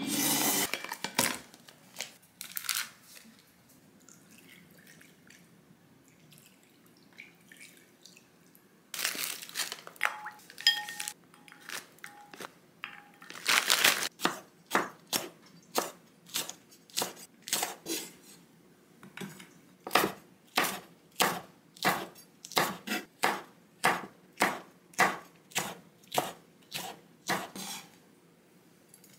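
Kitchen knife slicing fresh red chili peppers on a wooden cutting board, about two crisp cuts a second through the second half. Before that, a plastic bag rustles and rice cakes are tipped from it into a bowl of water.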